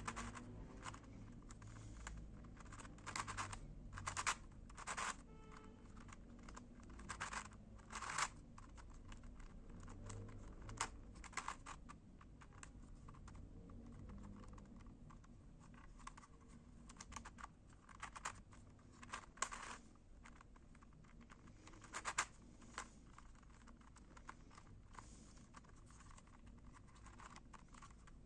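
Pieces of a Dino Eye Nazarí twisty puzzle clicking and rubbing as it is turned by hand, in irregular clusters of short clicks with pauses between turns.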